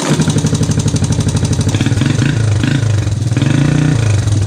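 Three-wheeler ATV engine starting on its pull starter and running, the revs rising and falling several times.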